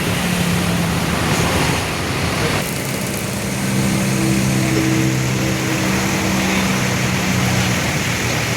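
Road traffic noise with a large vehicle's engine running in a steady drone, clearest through the middle of the stretch.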